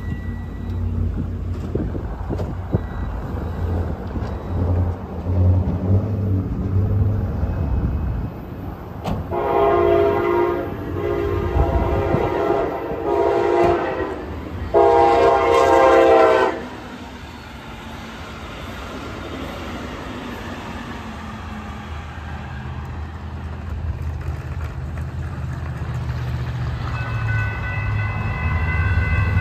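A train's horn sounds several blasts of a grade-crossing signal over a low rumble, the last blast the loudest. Near the end the crossing's warning bells start ringing as the gates begin to come down, while the approaching train's rumble grows.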